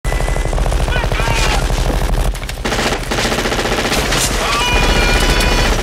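Sustained automatic gunfire: a continuous, rapid stream of shots from several weapons, as in a firefight.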